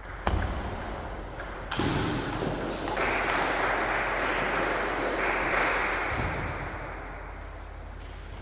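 Table tennis rally: the plastic ball clicking sharply off bats and table, with a loud even rushing noise through the middle few seconds.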